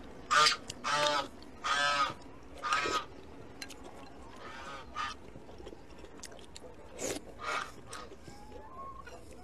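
Loud, squeaky slurps of soup and dumplings from a bowl held at the lips: several in quick succession in the first three seconds, then two more about seven seconds in.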